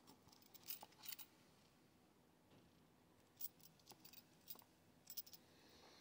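Faint, scattered clicks and scrapes of a leather double-buckle combat boot being handled and turned over, its metal buckles lightly clinking.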